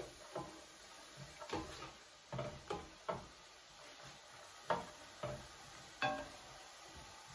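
Slotted spoon stirring chopped carrot, tomato and onion in a stainless steel pan, knocking against the pan with short ringing clinks at irregular intervals, over the faint sizzle of the vegetables frying in a little oil.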